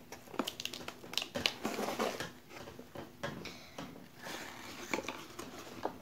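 Hands handling a homemade cardboard vending machine: scattered light taps, clicks and scrapes of cardboard, with pauses between them.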